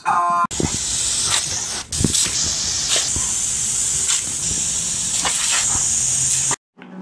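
Garden hose spray nozzle shooting a hard jet of water: a loud, steady hiss broken by irregular spatters as a dog bites at the stream. The hiss cuts off suddenly near the end, and a brief high squeal comes at the very start.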